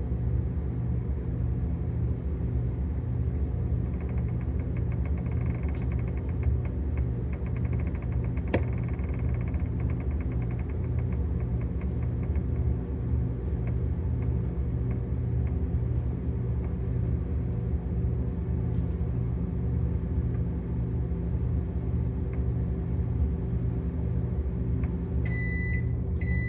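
Microwave oven running its cook cycle with a steady low hum and a regular pulsing. About a second before the end it starts beeping, which signals that the cooking time is up.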